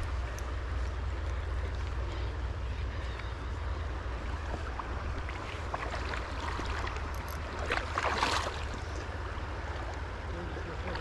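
River water rushing, with a steady low rumble of wind on the microphone; a brief louder rush of water about eight seconds in.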